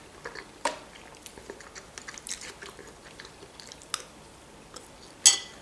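Close-up eating sounds: quiet chewing with small mouth and spoon clicks. A sharper click comes about two-thirds of a second in, and a short, louder noisy sound comes near the end.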